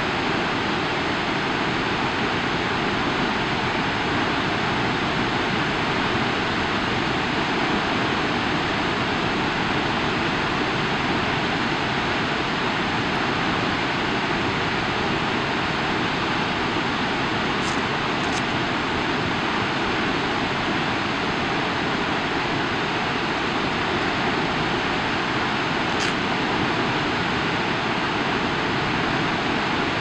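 Cascada San Rafael, a 480-foot waterfall at full flow, its falling water making a steady, even rush that holds the same level throughout.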